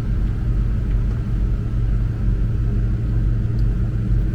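Supercharged 5.3-litre V8 of a 2003 Chevrolet Suburban idling, a steady low rumble heard from inside the cabin with the climate-control fan blowing.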